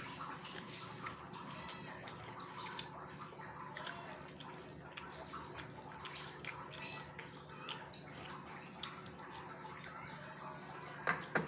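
Eating sounds: wet chewing, lip smacks and fingers mixing rice and fish on a steel plate, a scatter of small moist clicks over a steady low hum. Two sharper clicks come near the end.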